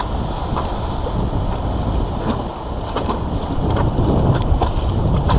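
Whitewater river rapids rushing: a loud, continuous wash of churning water with a deep rumble, and a few brief sharp splashes.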